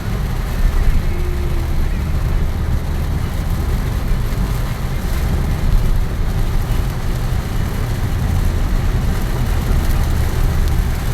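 Vehicle driving in heavy rain: a steady low road-and-engine rumble under an even hiss of rain and wet road.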